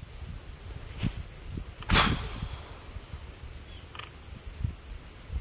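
Crickets trilling steadily in one high, continuous pulsing chorus, with a single short knock about two seconds in.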